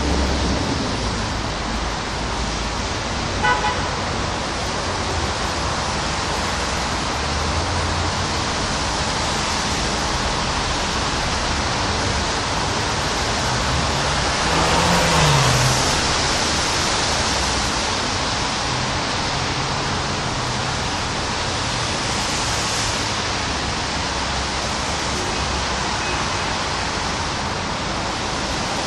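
Steady rain falling on trees and a street, with a vehicle passing on the wet road around the middle. A short toot about three and a half seconds in.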